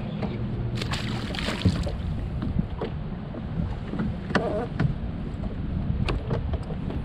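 Wind buffeting the microphone over small waves lapping against a boat hull, with a few short sharp knocks and clicks on the boat deck.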